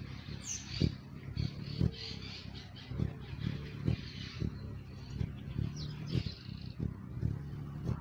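Hummingbird hovering at a nectar feeder, its wings giving a steady low hum broken by irregular low thumps, while other birds chirp faintly now and then in the background.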